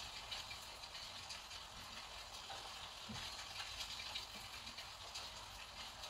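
Round paintbrush dabbing and stippling paint onto rough watercolour paper: a faint, crackly scratching with soft, irregular taps.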